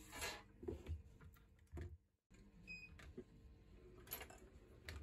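Faint scattered clicks, taps and rustles of a smartphone and its plastic back cover being handled and set down on a silicone repair mat, with a brief dead-silent gap about two seconds in.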